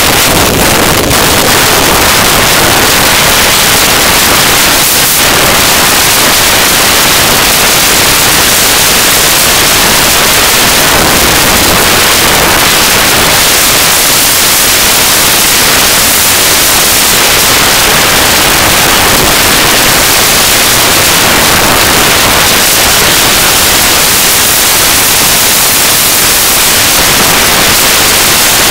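Heavy wind noise on the microphone of a camera moving along a trail: a loud, even rushing hiss with no distinct events.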